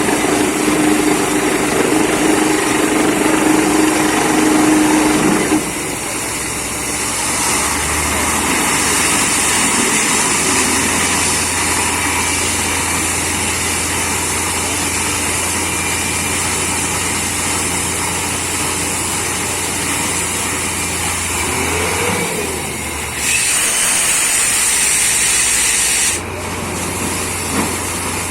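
Borewell drilling rig's engine and air compressor running, a loud, steady mechanical drone. The sound changes abruptly about five seconds in, and a loud hiss rises for about three seconds near the end.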